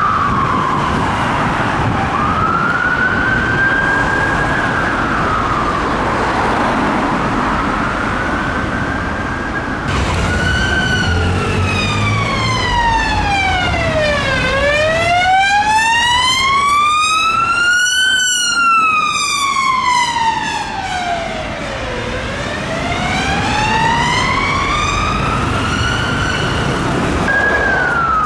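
Police car siren on a slow wail, its pitch rising and falling over several seconds each sweep, over city traffic. About ten seconds in it changes to a cleaner, slower wail with each rise or fall lasting about four seconds.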